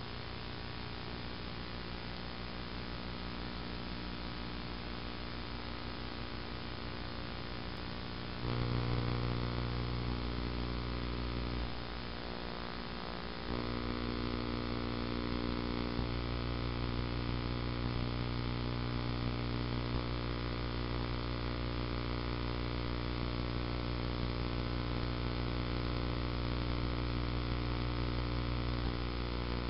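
Steady electrical mains hum with a stack of overtones, no other sound. It gets louder about eight and a half seconds in, drops back briefly around twelve seconds, and comes up again a second and a half later.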